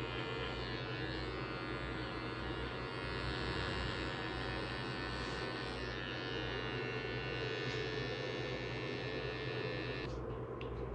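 Electric finishing trimmer running with a steady buzz over a low hum. The higher buzz stops suddenly about ten seconds in, leaving the hum.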